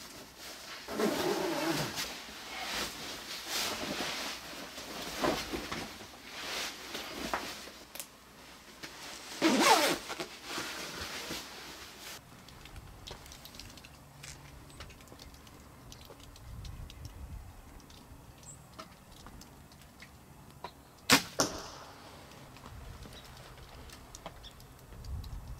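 Camouflage hunting clothes rustling and zipping as they are pulled on, then a quieter stretch outdoors broken by one sharp snap of a compound bow being shot, a little past the three-quarter mark.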